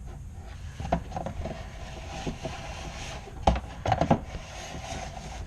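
Flexible dryer-vent cleaning rods and brush knocking and scraping inside a clogged dryer vent duct, hand-pushed against a lint blockage. Irregular knocks come about a second in and again in a loud cluster near three and a half to four seconds in, over a low steady rumble.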